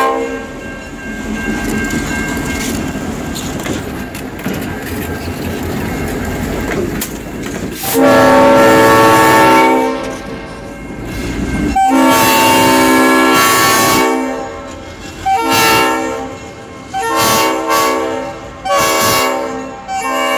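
EMD GP38 diesel locomotive running light passes close, its engine and wheels rumbling over the rail joints. From about eight seconds in, its RS-5T five-chime air horn blows two long blasts, then three shorter ones.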